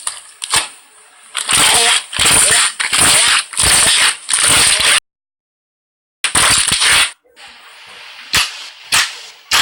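Slime being squeezed and kneaded in repeated squelching bursts. There is a second of dead silence about halfway, then a few sharp pops near the end.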